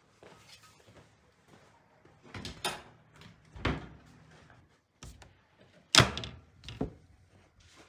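Clanks and knocks from a red Itimat tabletop electric oven being loaded: its metal tray and hinged glass door rattling in about five separate knocks, the loudest a sharp clack about six seconds in.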